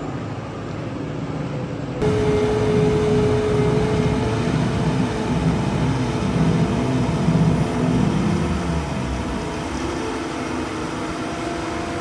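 Strautmann Verti-Mix 2002 SF Double self-propelled feed mixer running, its front milling cutter working into the silage face. The machine sound jumps louder about two seconds in, with a steady whine for a few seconds over a wavering low drone.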